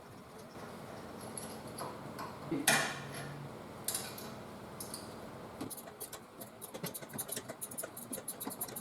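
Hand tools and brake parts being handled while working on a car's rear brake: a sharp metallic knock a little under three seconds in, a lighter one about a second later, then a run of quick, irregular small clicks and rattles.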